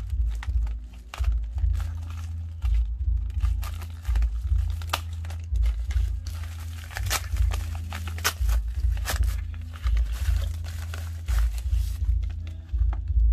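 Plastic courier pouches and padded mailers crinkling and rustling as they are handled and cut open, with irregular sharp crackles and bits of tearing.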